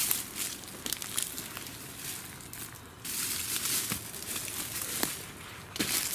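Crunching and crackling footsteps through dry undergrowth on a footpath, a dense run of small snaps and rustles that grows louder about halfway through.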